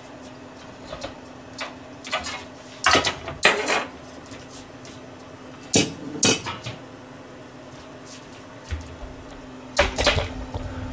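Kitchen clatter of pots, dishes and utensils being handled and set down: scattered clinks and knocks, a pair about three seconds in, another about six seconds in and a cluster near the end, over a steady low hum.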